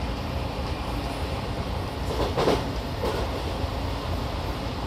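Odakyu 5000 series commuter train running at speed, heard from inside the passenger car: a steady low rumble of the wheels on the rails, with a short louder burst a little over two seconds in and a smaller one about a second later.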